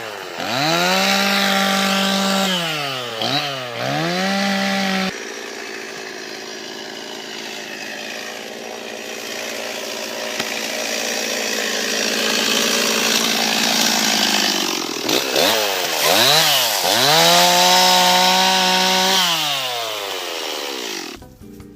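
Two-stroke chainsaw with a sharp chain revving in several bursts, then cutting through a cherry log for about ten seconds, the engine pulled down under load amid the rasp of the chain. It then revs free again and winds down near the end.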